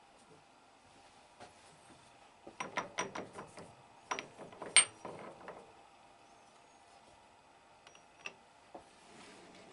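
A run of sharp metallic clicks and knocks, the loudest about five seconds in, then a few lighter ticks near the end: a dial indicator being handled and brought up against a lathe's tool post.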